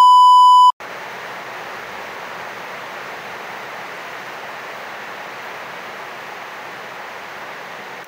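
A single steady test-tone beep lasting under a second, the kind played over TV colour bars. It cuts off into a steady, even hiss.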